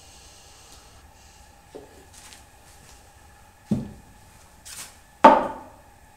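A few dull knocks: a small one about two seconds in, a sharper one near four seconds, a short hiss, then the loudest knock near the end, over a faint steady hum.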